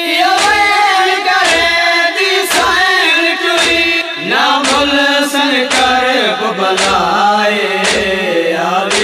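Voices chanting a noha, a mourning lament, in chorus, over a steady heavy beat of about one strike a second. More voices join in about halfway through.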